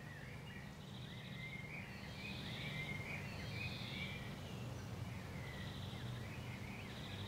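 Faint outdoor birdsong: several birds chirping and warbling in short phrases over a low steady hum.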